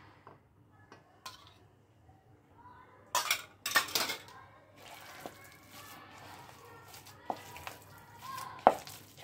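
A steel spoon and small steel bowl clinking and clattering, with two loud clatters a little over three seconds in as the bowl of beaten egg is handled and set down on a stone counter, then softer rubbing as hands mix potato and chicken cutlet mash, and a sharp ringing clink of metal near the end.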